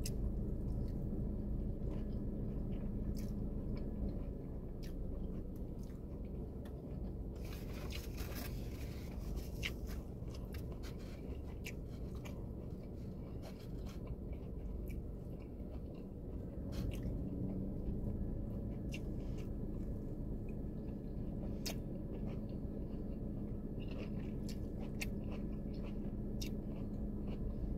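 Close-up chewing and biting of takeout General Tso's chicken, with scattered sharp clicks of a plastic fork on a foam container, over a steady low hum inside the car cabin.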